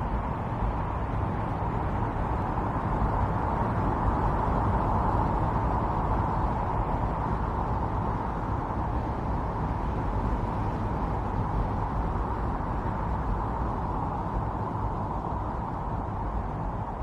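Strong storm wind blowing steadily, a dense rushing noise that swells a little a few seconds in.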